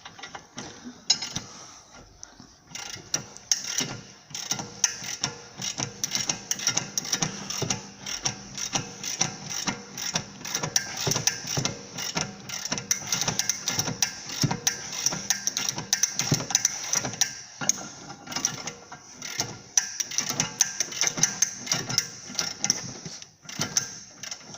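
Hand socket ratchet clicking in quick, uneven runs with clinks of metal, as a tight suspension bolt is worked loose.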